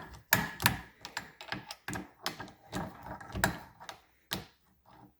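Irregular metallic clicks and taps of a socket wrench and hand tools working the small 7/16-inch bolts on a Powerglide transmission, a few clicks a second in uneven clusters.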